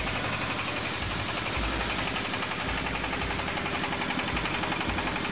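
Single-cylinder diesel engine of a walking power tiller (경운기) running steadily under way, with a rapid, even chugging beat.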